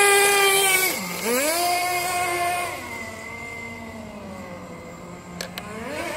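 Radio-controlled drift car's motor whining at a high pitch. The pitch dips about a second in and climbs back, then falls lower and quieter from about three seconds as the throttle eases, and rises again near the end.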